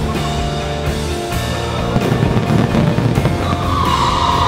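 Music plays over a fireworks display, with scattered sharp firework pops. About three and a half seconds in, a loud steady hiss starts as rows of fountain fireworks shoot columns of sparks upward.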